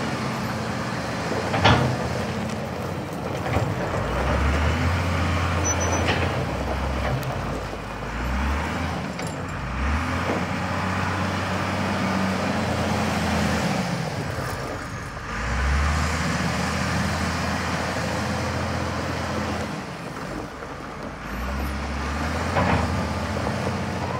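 2006 Cat 924G wheel loader's diesel engine running as the loader drives around on gravel, revving up and falling back several times. A few short sharp knocks come through over it.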